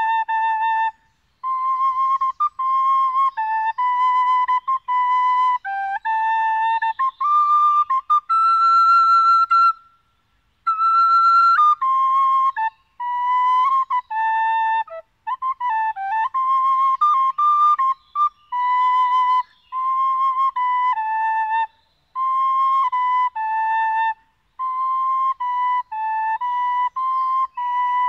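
Solo flute playing a slow melody of held notes with slight vibrato, stepping up and down in pitch and broken by short pauses between phrases.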